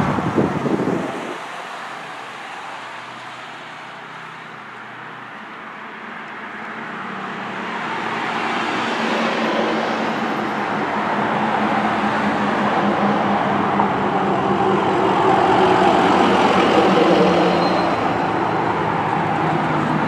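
Road traffic on a town street: a vehicle passes close at first and its sound cuts off abruptly about a second in. Quieter traffic follows, then engine hum and tyre noise build steadily as pickup trucks and a box truck approach, loudest a few seconds before the end.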